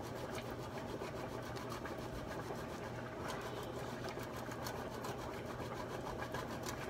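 A block of Parmesan cheese grated on a stainless steel box grater: a steady run of repeated rasping strokes of hard cheese against the metal blades.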